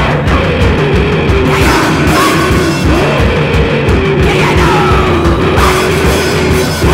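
A bass-less noise-rock trio playing loud rock music: guitars with sliding, bending notes over a steady drum beat.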